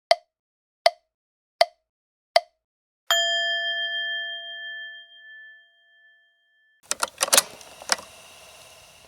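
Four sharp ticks about three-quarters of a second apart, then a single bell-like ding that rings on for several seconds, like a timer's chime. Near the end comes a short clatter of clicks.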